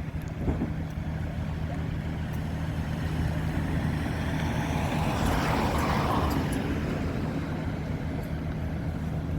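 A steady low engine hum, as of a diesel vehicle or machine running. A broader rushing noise swells up and fades away again, loudest about five to six seconds in.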